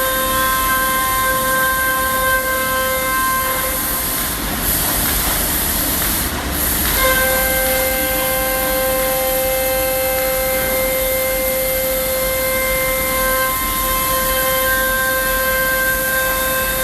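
CNC router spindle running with a steady high whine while it cuts plywood. Partway through, the whine breaks off for a few seconds and a rougher cutting noise takes over, then the whine comes back.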